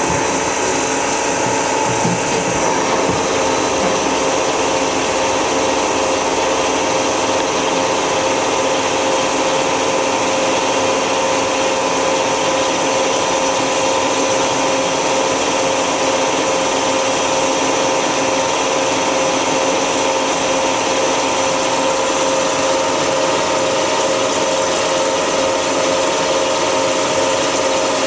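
Miyano BND-34S CNC turning center running a program: a steady mechanical whir with steady whining tones from the spindle drive and machine. One of the tones drops out about two seconds in.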